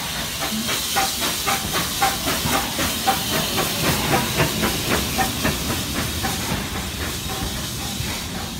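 Hunslet Austerity 0-6-0 saddle-tank steam locomotive passing close by, hissing steam with a quick regular beat of about four chuffs a second. The beat is loudest as the engine goes past and fades as the coaches follow.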